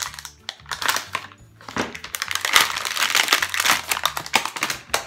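Thin plastic sausage packaging crinkling and rustling as it is pulled open and the sausage is drawn out, most intense around the middle.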